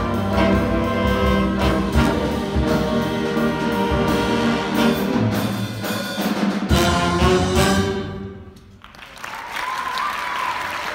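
A school jazz big band of saxophones, trumpets, trombones, piano and congas plays its final bars, the last chord ending about eight seconds in. A brief hush follows, then audience applause.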